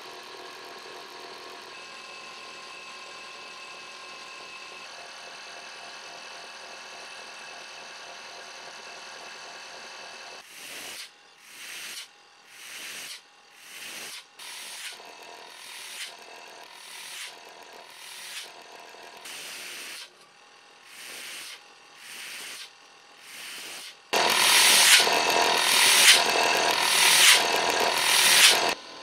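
Fuji Clean MFD-250S electric rotary pump, belt-driven by its motor, running with a steady hum. From about ten seconds in comes a run of about a dozen short rushing bursts, roughly one a second. Near the end a much louder continuous rush lasts about five seconds and then cuts off suddenly.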